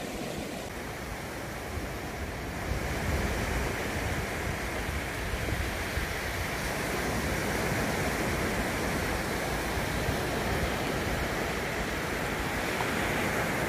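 Steady rush of small waves breaking on a sandy beach, mixed with wind.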